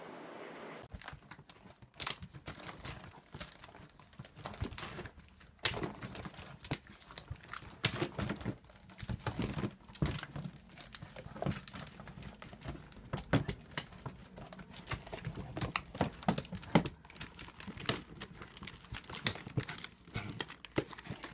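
A bag stuffed with wrapping paper crinkling and rustling in irregular crackles as a dog digs and climbs into it.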